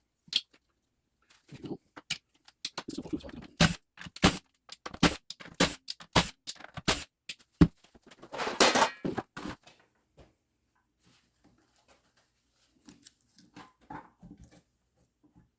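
Sharp clicks, knocks and clinks of small metal parts and hand tools being handled and set down while an air-over-hydraulic treadle pump is taken apart. There is a longer scraping, rustling stretch about eight seconds in, then only a few faint clicks.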